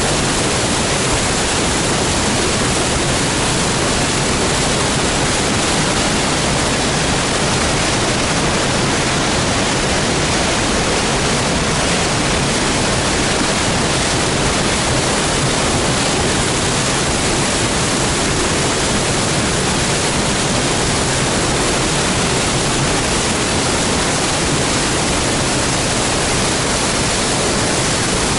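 A spring waterfall's water pouring down in a loud, steady rush that does not change.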